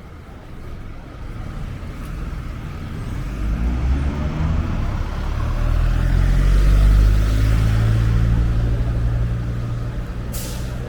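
A motor vehicle passing close by: low engine rumble and tyre noise build over several seconds, are loudest about seven seconds in, then fade. A short hiss comes near the end.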